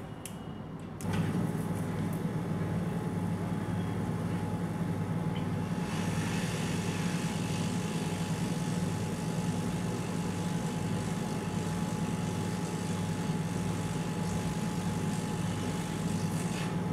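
Hot air rework station blowing, switched on about a second in: a steady low hum with a thin whine and air hiss, the hiss growing stronger a few seconds later. The hot air is heating a surface-mount IC off a motherboard to desolder it.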